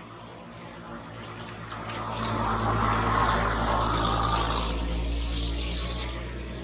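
A motor vehicle passing by: engine hum and noise swell up over a couple of seconds and fade away again, after two short ticks about a second in.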